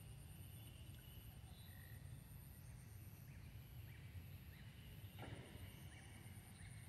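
Near silence: faint outdoor ambience with a low steady rumble and a steady high whine that pulses, a few faint short chirps, and one soft click or rustle about five seconds in.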